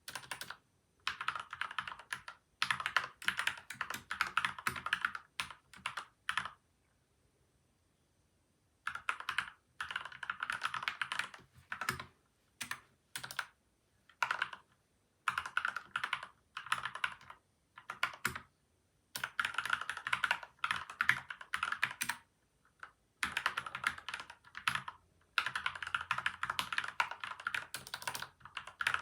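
Typing on a PCL87 mechanical keyboard, modded with lubed switches and stabilisers, tape and foam: runs of rapid keystrokes lasting a few seconds each, broken by short pauses and one longer silence a little after a quarter of the way in.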